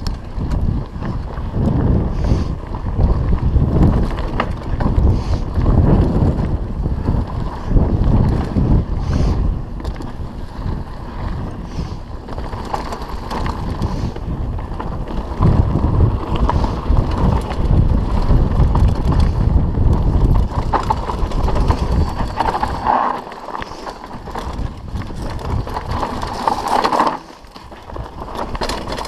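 Mountain bike riding fast over a rough dirt trail: heavy wind buffeting on the microphone, mixed with the rattle of the bike and its tyres on the ground. The rumble drops away sharply near the end.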